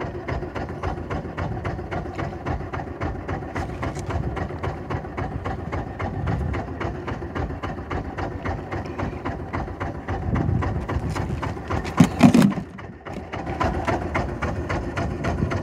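Small fishing boat's engine idling with a steady, even rhythm. About twelve seconds in comes a short loud clatter and thump.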